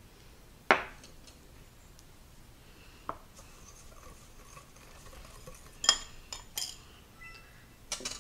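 Dry spice blend being stirred in a glass bowl: a utensil scraping and clinking against the glass, with a sharp knock just under a second in and a few louder clinks in the second half.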